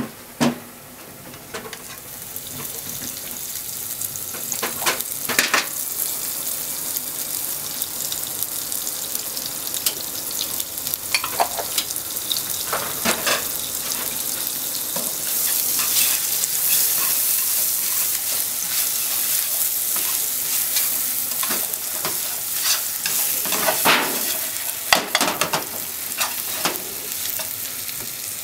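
Bread crusts frying in butter and sugar in a nonstick frying pan: a steady sizzling hiss that builds over the first few seconds, with scattered knocks and scrapes against the pan, several in a cluster near the end as the crusts are turned with chopsticks.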